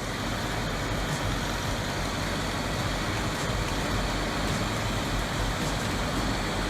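Vermeer HG6000 horizontal grinder running under load: a steady, dense grinding noise over a low engine hum.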